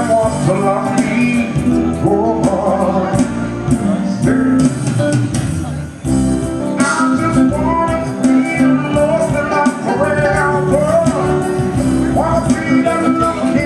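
A man singing through a microphone over amplified musical accompaniment, with a brief dip in the music about six seconds in.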